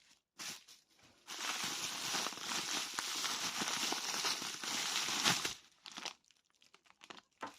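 Packaging being crinkled and unwrapped by hand, a short rustle and then about four seconds of continuous crinkling and tearing, as the next pair of custom toy figures is taken out of its wrapping.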